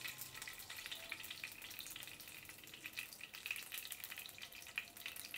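Melted ghee heating in a pan and sizzling faintly, with a fine, irregular crackle.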